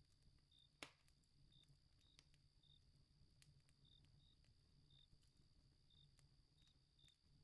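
Faint night campfire ambience: a wood fire crackling with scattered small pops and one louder crack about a second in, under crickets chirping roughly once a second against a steady high insect trill.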